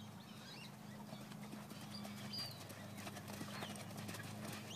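Faint hoofbeats of a horse cantering on sand arena footing, over a steady low hum.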